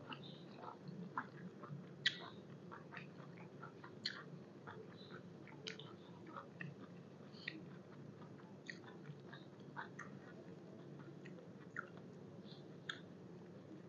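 Close-up mouth sounds of a person chewing beef-tripe koi salad with fresh vegetables: irregular small clicks and smacks, several a second, one louder about two seconds in.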